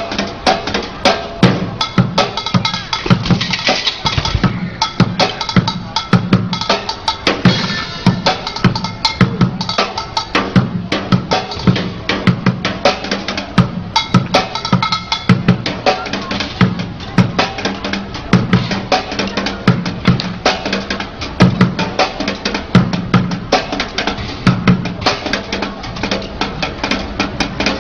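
Street bucket drumming with sticks on upturned plastic buckets: a fast, dense run of strikes. A small cymbal mounted on a bucket crashes a few seconds in and again near eight seconds.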